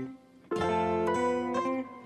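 Background music: plucked-string instrumental, guitar-like, with a short gap at the start before the notes resume about half a second in.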